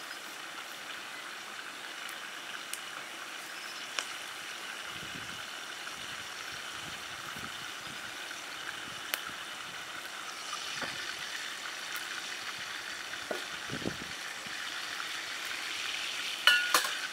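Oil sizzling steadily in a hot frying pan as chicken pieces go in, with a few light clicks and then loud metal clanks of the pan near the end.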